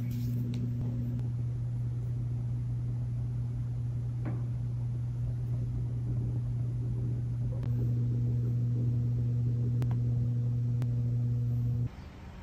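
Steady low machine hum with a few faint ticks, cutting off suddenly near the end.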